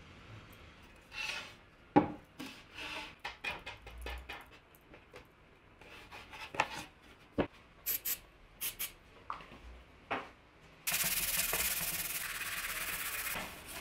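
Boards and hardware handled on a workbench: scattered light knocks and clicks. About eleven seconds in, a sanding block starts rubbing back and forth over a hardboard panel, a steady sanding noise lasting a few seconds.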